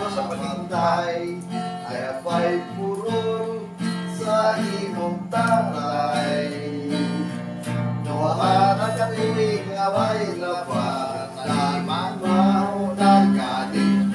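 Acoustic guitar being played, with low notes ringing under a changing melody line.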